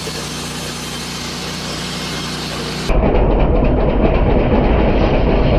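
Machinery running steadily with a low hum; about three seconds in, it cuts to a louder, rougher machine running with a fast rhythmic clatter.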